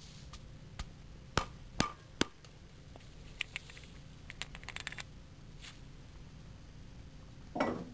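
Sharp metal knocks and clicks as the O.S. FS-52 four-stroke model engine's aluminium crankcase is pushed down onto a wooden block to drive the crankshaft out. Three sharp knocks come about a second and a half to two seconds in, then a scatter of lighter clicks from handling the parts, and a brief soft noise near the end.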